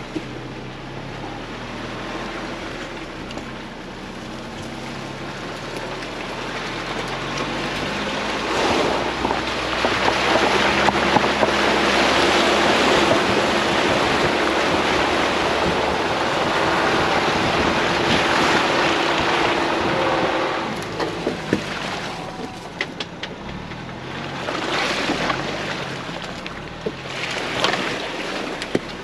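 Ford Bronco's engine running low as it creeps along a trail; about eight seconds in, its tyres plough into a muddy puddle with a rush of splashing water that lasts about twelve seconds. Shorter splashes and clicks follow near the end.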